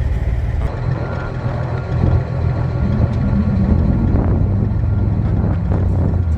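Heavy diesel truck engine idling, a steady low rumble.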